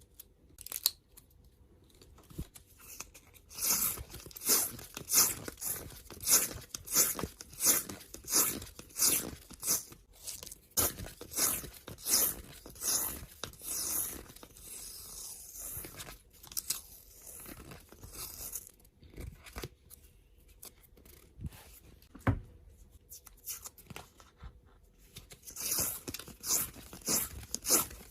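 Washi tape ripping off its roll in quick repeated pulls, about two a second, as it is wound off for sub-packaging. The pulls stop for a stretch of softer scratching and rustling, then start again near the end.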